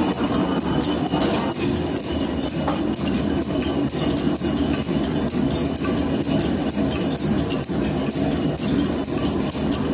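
Metal planer cutting a steel plate: steady mechanical running of the machine with a constant clatter of small clicks.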